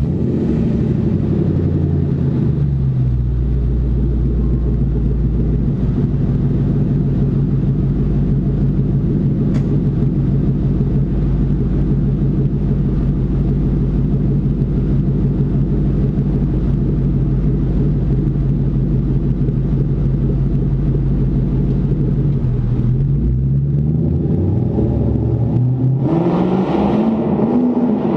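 2001 Mustang GT's 4.6-litre V8 through a Magnaflow exhaust, echoing in a garage. Just after starting, its idle drops and settles over the first few seconds, runs steady, then the engine is revved a few times near the end.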